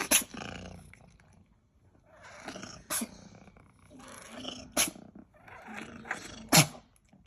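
A Scottish Fold cat in a sneezing fit, four sharp sneezes about every two seconds with noisy breathing in between.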